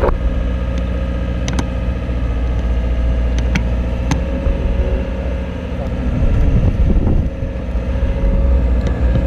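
Boom lift engine running steadily, with a steady whine over it and a few sharp clicks; it gets louder for a moment about six seconds in.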